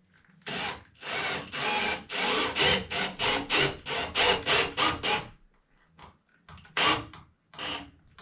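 A tool working wood in quick, rhythmic rasping strokes, about three a second, stopping about five seconds in, then two more strokes near the end.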